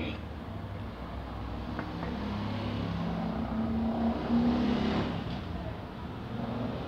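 Low rumble of an engine, with a pitched hum that climbs in pitch over a few seconds and is loudest about four seconds in.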